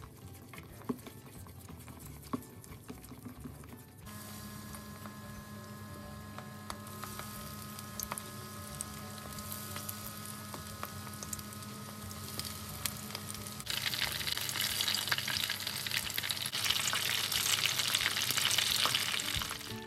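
Chopsticks stirring tempura batter in a stainless steel bowl, with a couple of light clicks. About four seconds in, this gives way to batter-coated stuffed green peppers sizzling as they deep-fry in a pan of oil heated to 170 °C, over a steady hum. The sizzle becomes much louder about two-thirds of the way through.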